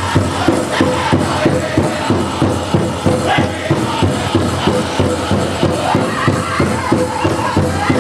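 Powwow drum group singing a chicken dance song: a steady drumbeat, a little over two beats a second, under high-pitched group singing.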